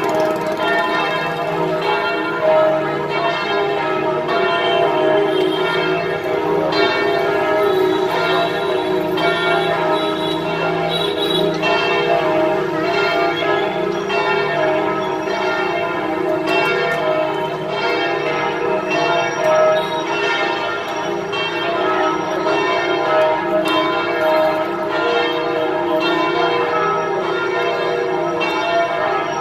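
St. Joseph's Cathedral church bells ringing a continuous peal: several bells struck over and over, their tones overlapping and ringing on into one another.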